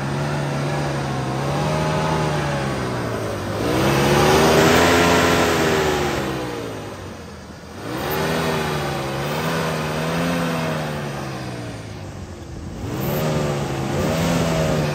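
Dodge Nitro engine, running on engine oil in place of gasoline, revved repeatedly while parked: the pitch rises and falls in several cycles, hardest about four to six seconds in, dropping back near eight seconds before climbing again.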